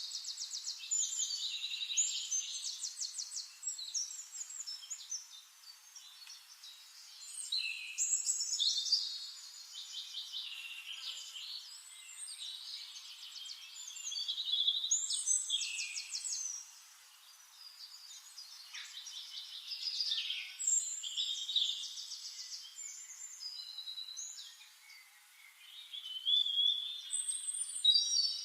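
Forest songbirds singing: bursts of rapid trilled and chirping song that come back every six seconds or so, with quieter calls in between.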